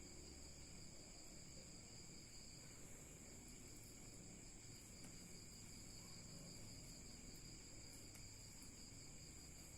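Near silence, with a faint, steady, high-pitched trill in the background.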